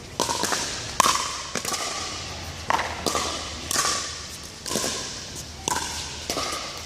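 Pickleball rally: paddles striking the plastic ball and the ball bouncing on the court, a quick, irregular run of sharp pops, each echoing briefly in a large hall.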